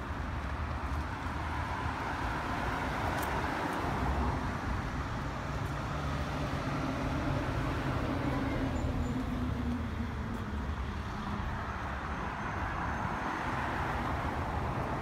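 Road traffic passing on the street alongside: a steady wash of tyre and engine noise that swells as cars go by, loudest near the start and again near the end.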